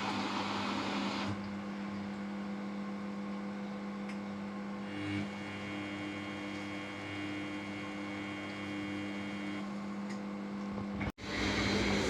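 Samsung washing machine running with a steady motor hum, which drops in level about a second in. The sound breaks off sharply about 11 seconds in and returns louder and noisier.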